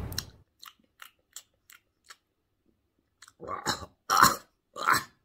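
A man smacking his lips and chewing as he tastes hot chilli sauce off a spoon. First comes a run of faint wet mouth clicks, then three louder smacks near the end.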